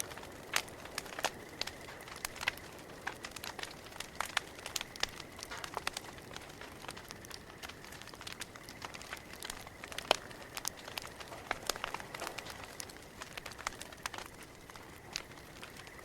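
Campfire crackling: irregular sharp pops and snaps of burning wood over a soft steady hiss, the loudest pop about ten seconds in.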